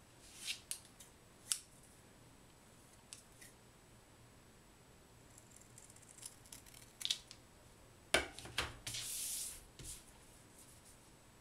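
Scissors snipping a small folded sheet of origami paper, with light clicks of the paper being handled. About eight seconds in there is a knock, then a short hiss lasting about a second.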